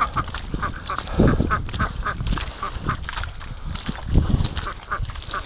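A flock of Pekin ducks quacking in quick, overlapping chatter as they waddle along together. Two low thumps stand out, about a second in and again near four seconds.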